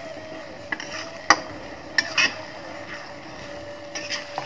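Metal spatula stirring ground red chilli paste frying in a stainless steel wok, scraping the pan with several sharp clinks of metal on metal, the loudest about a second in.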